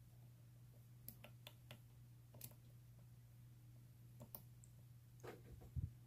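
Lock pick clicking against the pins in the keyway of an old Corbin push-key padlock: a handful of faint, scattered clicks over a low steady hum.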